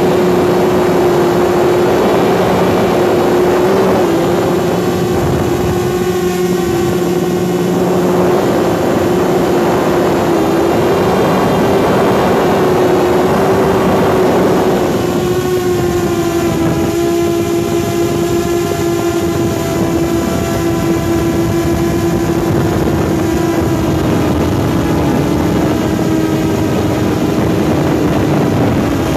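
Quadcopter's electric motors and propellers whining steadily over rushing prop wash, heard up close from a phone hung beneath the drone. The drone is laden with the heavy phone and holder. The pitch wavers slightly, and about halfway through, higher overtones come into the whine.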